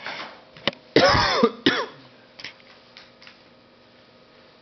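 A person makes a short, loud throat-clearing vocal sound about a second in, with a shorter trailing sound just after it. A small click comes just before it.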